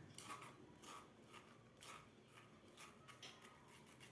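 Faint, irregular scraping and light taps of straining a blended remedy through a strainer into a glass.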